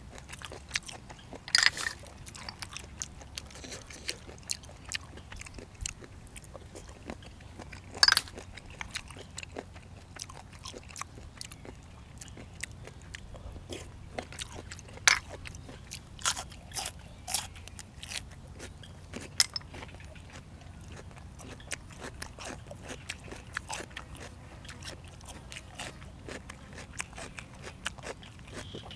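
Close-miked eating: crunchy bites and chewing, with a string of sharp clicks and a few louder crunches scattered through.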